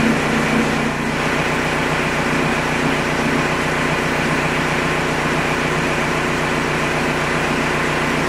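Volkswagen 1.9 TDI (ALH) four-cylinder turbodiesel idling steadily at about 900 rpm. Its injection pump is not yet adjusted, so it is over-fuelling at idle, with injection quantity reading above the 9 mg/stroke limit.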